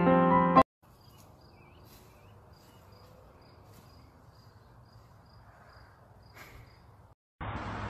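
Piano music cuts off a split second in, then a cricket chirps quietly and evenly, about three times a second, over a faint low hiss. Near the end a much louder steady hiss starts.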